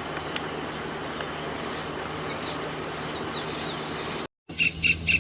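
Insects, crickets by the sound of it, trilling: a steady high whine with short chirps in small groups about once a second. Near the end it cuts off briefly, and a rapid run of high repeated call notes starts.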